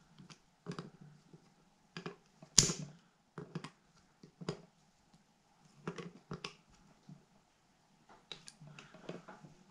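Screws being tightened down with a screwdriver on a cover of an Edelbrock Performer carburetor: scattered small clicks and taps of metal tools and parts, with one sharper knock about two and a half seconds in.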